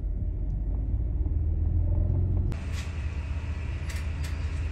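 Low rumble of a car rolling slowly, heard from inside the cabin. About halfway through the rumble thins and a brighter hiss comes in, with a couple of light knocks near the end.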